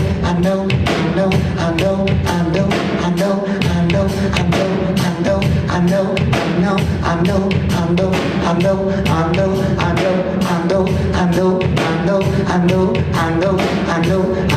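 A live hip-hop band playing a steady drum beat over a bass line, with a wordless singing voice on top.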